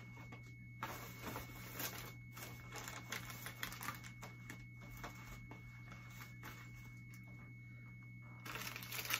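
Scattered light clicks, taps and crinkles of candy packages and plastic eggs being handled and packed into a plastic basket, over a steady low hum.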